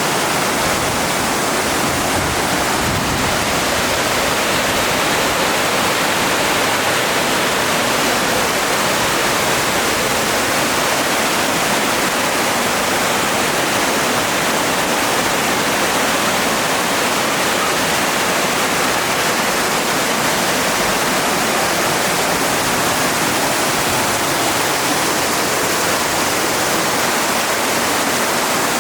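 Cascading waterfall: a steady, loud rush of falling water with no breaks.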